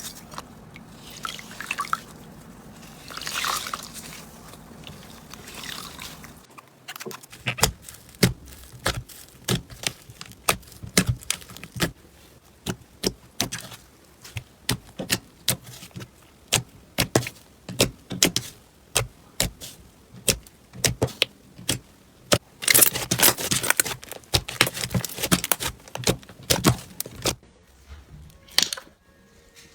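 Slime being squeezed and poked by hand: soft wet squelching at first, then a long run of sharp, sticky clicks and pops, irregular and closely spaced, with a louder, denser stretch of them later on.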